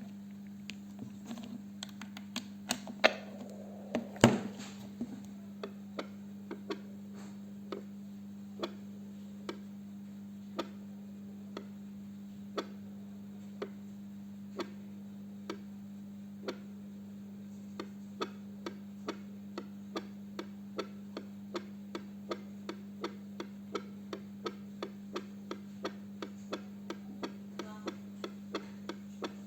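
Fetal Doppler detector's loudspeaker giving short, regular clicks over a steady low hum. The clicks come about once a second at first and speed up to about two a second past the halfway point. A few louder knocks sound in the first few seconds.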